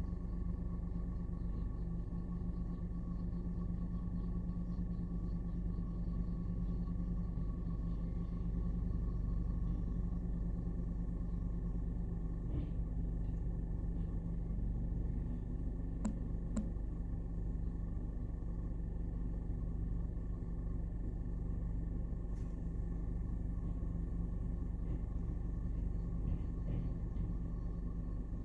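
Rear-loader garbage truck's diesel engine running steadily at the curb, with a steady high whine over the low hum. A few sharp knocks come through about sixteen seconds in and again a few seconds later.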